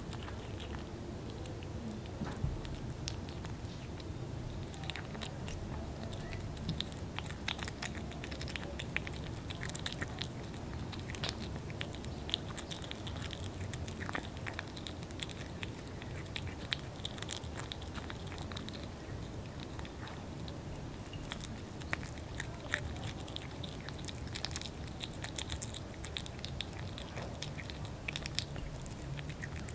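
A kitten chewing and biting boiled fish, many small wet clicks and crunches going on throughout.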